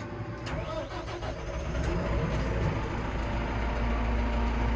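Massey Ferguson 6713 tractor's diesel engine being started from inside the cab. The starter cranks from about half a second in, the engine catches about two seconds in, and then it settles into a steady low idle.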